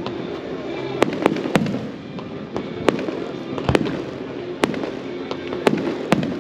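Aerial firework shells bursting: about eight sharp bangs at irregular intervals, some in quick succession, over a steady background rumble.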